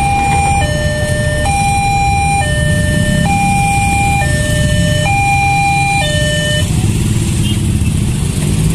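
Railway level-crossing warning alarm sounding its two-tone signal, a higher and a lower note alternating about once a second. It cuts off suddenly about seven seconds in, once the crossing is clear of the train. Underneath, a crowd of waiting motorcycle engines keeps running.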